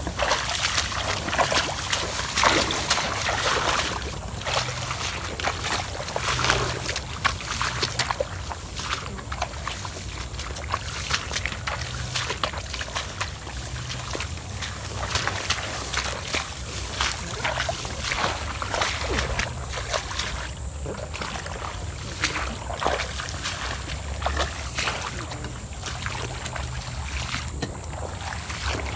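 Sloshing and splashing through shallow marsh water and wet grass: footsteps wading and a cloth hand net being pushed through the water and reeds, with grass swishing, in an irregular stream of short rustles and splashes.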